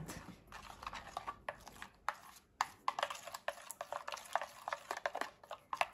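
A small plastic spoon stirring a thick, wet paste of ground oats and clay in a plastic bowl: quick, irregular scrapes and soft clicks against the bowl.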